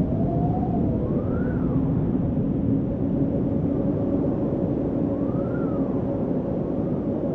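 Steady low rumble of traffic with a faint siren wailing up and down, its pitch rising and falling twice.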